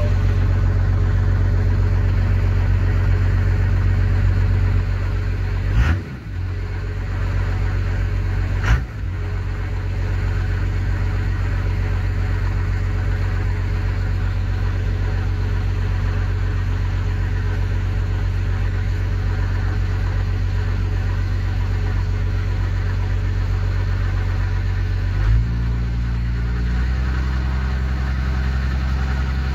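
Warm 12-valve Cummins 5.9 L inline-six diesel idling steadily. It gives two brief throttle blips about 6 and 9 seconds in. Near the end the engine speed steps up and is held higher.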